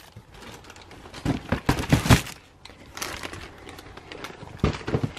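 Plastic wrappers on packaged squishy toys crinkling and cardboard boxes being handled, in a few short spells of rustling and light knocks.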